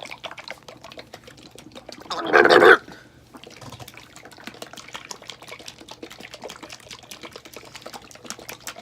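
Small plastic bottle of Danimals drinkable yogurt being shaken, the thick liquid sloshing inside, with fast irregular clicking and rattling throughout. One much louder burst of sloshing comes about two seconds in.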